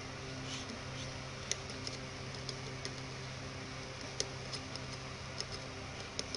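Metal tweezer tips tapping and scraping on a Baofeng UV-82 radio's circuit board, giving sharp, irregular ticks about two a second, over a steady low hum.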